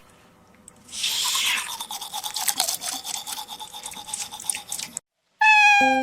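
Rapid scratchy scrubbing strokes for about four seconds, cut off suddenly, then a short pitched tone that falls slightly near the end.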